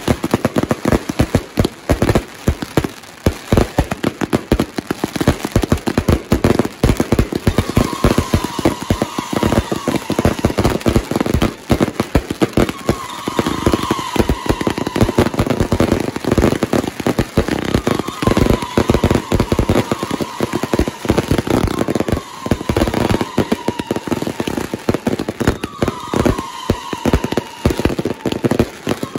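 Fireworks cakes firing in a dense, rapid barrage of bangs and crackles, with a short, slightly falling whistle-like tone recurring every few seconds from about a quarter of the way in.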